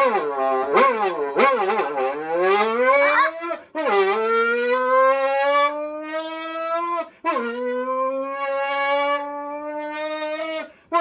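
A man blowing into a partly crushed aluminium energy-drink can held to his mouth, making a motorcycle exhaust sound: quick revving blips at first, then a long rising rev, then two long held notes, each broken off by a short pause for breath.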